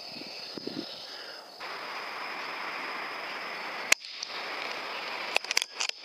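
A single sharp air rifle shot about four seconds in, over a steady hiss with a thin high tone, followed near the end by a few fainter clicks.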